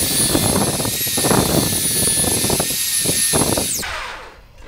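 A power drill spins a Magic Ball bore cleaner, its wire brush scrubbing inside shotgun barrels at the chamber end and forcing cones: a steady high whine over rough scrubbing and rattling. Near the end the drill stops and its whine drops away.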